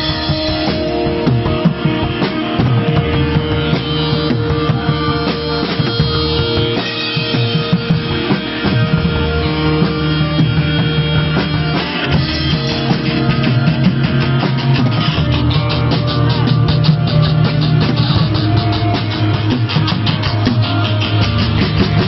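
Rock music: guitar chords over a drum kit. The drumming gets busier about halfway through.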